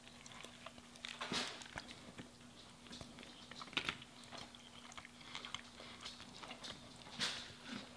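Close-miked eating sounds: two people biting into and chewing soft-bun triple burgers, with faint wet smacks and mouth clicks. There are louder bites about a second and a half in, near four seconds and near seven seconds.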